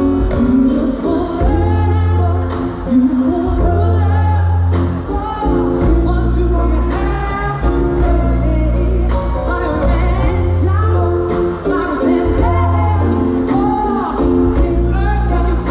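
Live band music with a choir and lead voice singing over a steady bass line and a regular drum beat.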